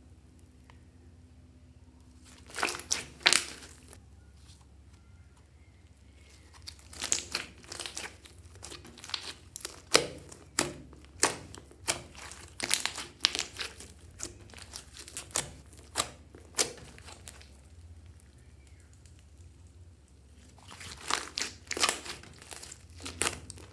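Hands kneading and squeezing thick slime mixed with makeup and clay, giving sharp sticky crackles and pops. The crackling comes in runs: briefly about two and a half seconds in, a long stretch through the middle, and again near the end, with quiet pauses between.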